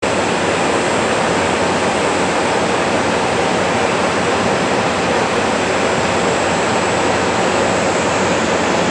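KiHa 181 series diesel express railcar standing with its engines idling, the roof radiator fan making a loud, steady rushing noise.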